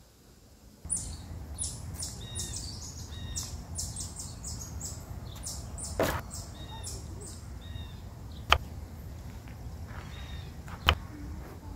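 Green onions swished in a plastic basin of water, with splashing and high bird chirps starting about a second in. Later a kitchen knife knocks sharply on a wooden cutting board twice as an onion is cut.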